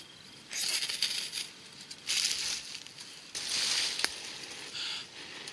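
Four breathy puffs about a second apart as a smouldering cramp ball fungus is blown on to grow the spark into a glowing ember, with a single sharp click about four seconds in.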